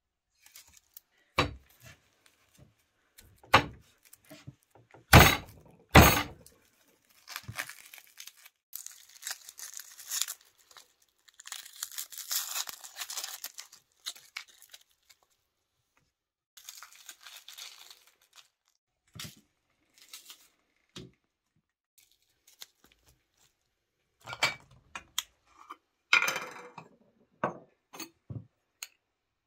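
Dry skin of a red onion crackling and tearing as it is peeled by hand, between several sharp clicks and knocks on the table, the loudest pair about five and six seconds in.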